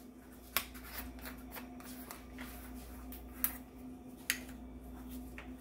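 Kitchen handling noise: a few sharp clicks and taps as things are moved around the stove, over a steady low hum.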